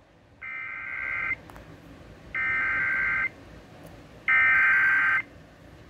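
Emergency Alert System SAME header broadcast over the radio: three short bursts of warbling data tones, each just under a second long with about a second's pause between, each louder than the one before. They mark the start of a severe thunderstorm warning.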